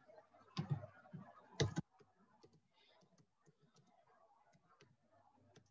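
Computer keyboard keys clicking one after another as a search term is typed. Two louder knocks come first, in the first two seconds.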